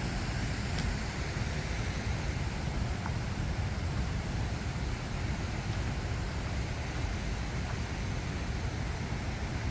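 Steady rushing noise, heaviest in the low end and even throughout, with a couple of faint clicks.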